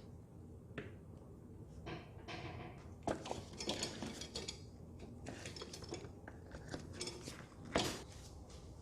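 Hand tools and small metal parts clinking and clattering as they are handled, with a sharp knock near the end.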